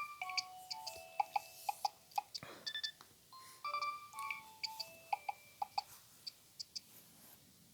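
Nokia 3120 mobile phone ringtone playing: a quick electronic melody of short beeping tones with sharp percussive ticks. The melody stops about six seconds in, leaving a few isolated ticks.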